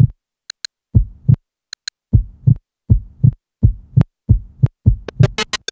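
Electronic heartbeat played through Airsticks gesture controllers: paired low thumps about once a second, quickening slightly, with a few high ticks between them. Near the end it breaks into a fast run of sharp clicks.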